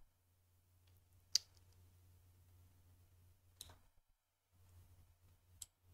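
Computer mouse clicks: three single sharp clicks about two seconds apart, the first the loudest, over a faint low hum.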